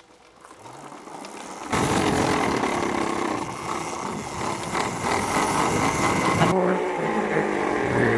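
Electric mini bike being ridden on a wet road: a loud rush of wind and tyre noise starts suddenly about two seconds in, with short rising and falling tones from the motor near the end.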